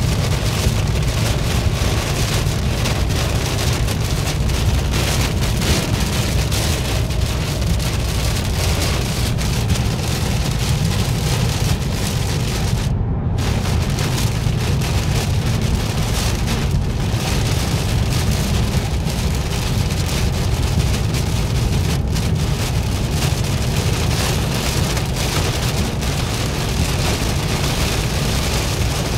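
Torrential rain pelting the roof and windscreen of a Volvo V90, heard from inside the cabin at motorway speed, over a steady low rumble of tyres on the wet road. The hiss of the rain cuts out for a moment about 13 seconds in.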